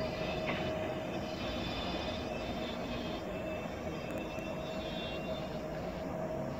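Steady hum of ICE high-speed electric trains at the platform, with a steady mid-pitched whine over a low rumble.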